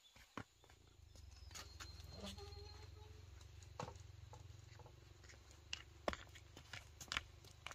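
Light, irregular footsteps of sandals on a dry dirt path, with small taps and knocks, over a faint low rumble.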